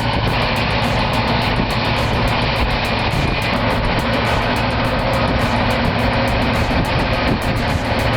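Caterpillar D11 bulldozer running steadily under load, a loud, even engine and machine noise.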